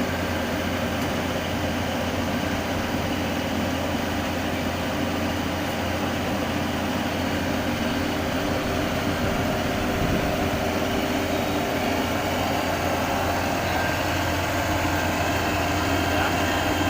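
Diesel engine of a Yanmar YH850 combine harvester running steadily as the machine crawls across ramps over an irrigation channel, a little louder in the second half.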